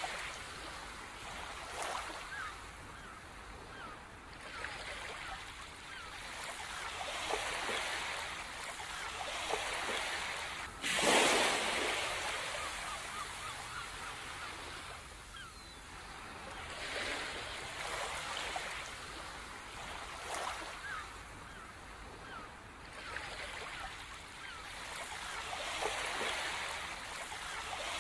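Ocean surf washing in and drawing back in slow swells, with one louder wave breaking about eleven seconds in.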